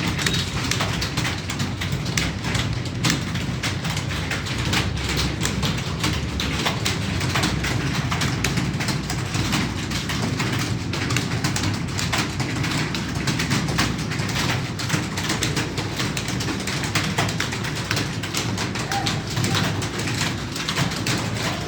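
Rapid, continuous typing on a computer keyboard: a fast, uneven stream of key clicks over a steady low background hum.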